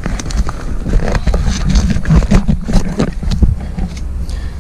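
Hands working on a motorcycle's airbox: an irregular run of clicks, knocks and scrapes over a low rumble.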